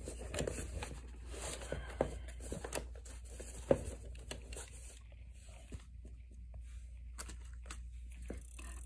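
Irregular light plastic clicks, taps and rustling as a ThinkPad T60 laptop's keyboard and case are handled, with one sharper click about four seconds in.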